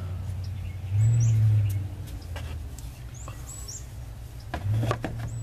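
Plastic timing cover handled and fitted over the timing belt, with scattered light clicks and knocks that bunch up near the end. Small birds chirp now and then in the background, and a low hum swells twice, loudest about a second in.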